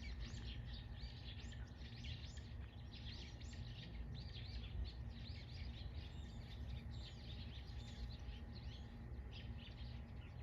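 A chorus of small songbirds chirping and twittering: many short, quick, high notes overlapping without a break, over a steady low background rumble.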